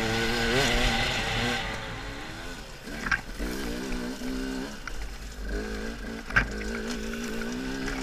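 Two-stroke KTM enduro motorcycle engine heard from the rider's helmet, its revs rising and falling over rough ground and settling lower after about two seconds. Two sharp knocks come about three and six seconds in, the second the loudest.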